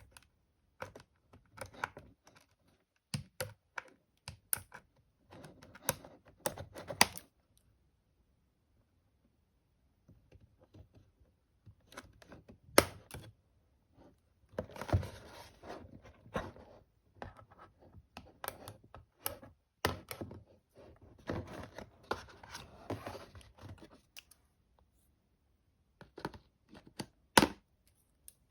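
Doll packaging being handled and opened: irregular sharp clicks and taps of plastic and cardboard with stretches of rustling and scratching, broken by two short pauses.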